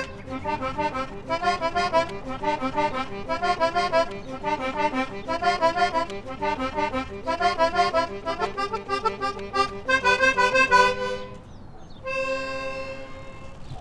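Small toy accordion playing a fast, bouncy run of short, repeated chords. Near the end the run stops and a single chord is held.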